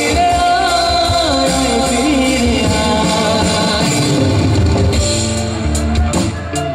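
A man singing a Bengali song live into a handheld microphone, over band accompaniment.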